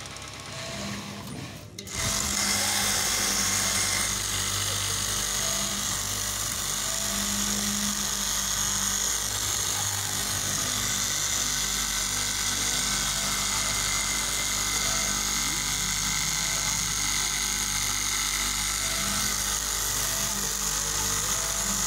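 KM straight-knife cloth cutting machine running steadily, its upright reciprocating blade cutting through a thick stack of fabric layers. The steady, even machine noise comes in abruptly about two seconds in.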